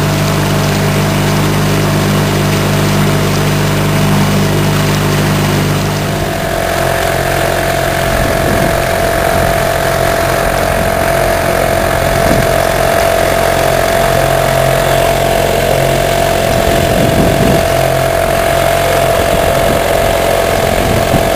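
Dinghy outboard motor running steadily under way, its engine note changing about six seconds in.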